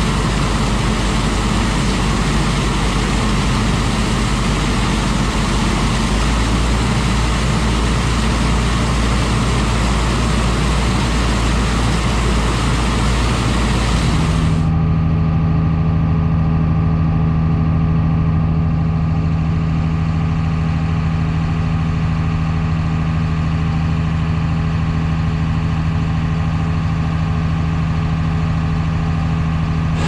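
A John Deere combine's engine and unloading auger run steadily while shelled corn pours into a gravity wagon. About halfway through, the sound changes suddenly to a steady, muffled tractor engine drone heard from inside the cab, with the engine driving the grain cart's auger as it unloads corn into a truck.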